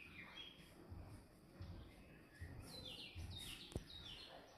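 Faint bird calls: short, high chirps that fall in pitch, coming in a quick series in the second half, with one sharp click near the end.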